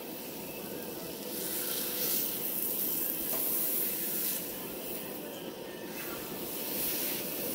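Ribeye steak searing in a hot cast iron pan: a steady sizzle that swells a little a couple of seconds in.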